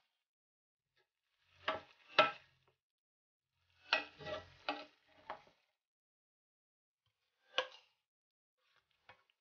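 Wooden spatula stirring thick tomato sauce in a stainless steel pot, scraping and knocking against the pan in a few short strokes with silence between.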